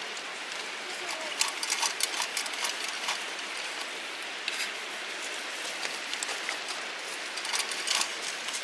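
Meat sizzling on a grill net over a charcoal fire, a steady hiss with clusters of sharp crackling pops about a second and a half in and again near the end.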